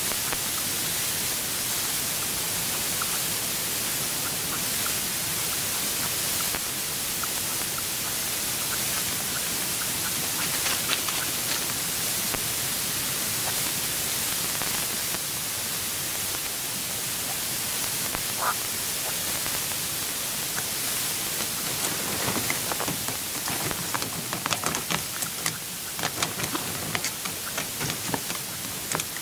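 Steady hiss with no clear source, with scattered light ticks and taps in the last several seconds.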